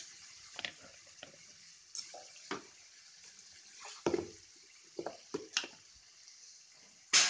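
Plastic spice jars being handled: lids lifted off and set back, and a plastic measuring spoon knocking in the containers, giving a string of short clicks and knocks, the loudest near the end.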